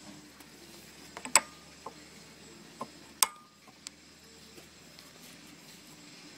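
Sharp metal clacks of a steel plate being set against a magnetic kite-buggy quick release: two loud clacks about two seconds apart, each with a short ring, among a few lighter clicks.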